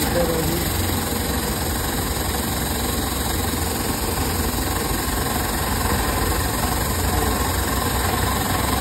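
Pressure washer running steadily, its water jet spraying onto an aluminium truck intercooler.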